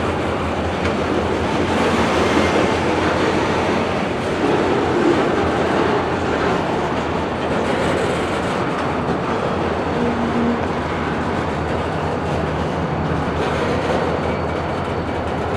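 Freight train moving through a rail yard: locomotive and railcars running with a steady rumble.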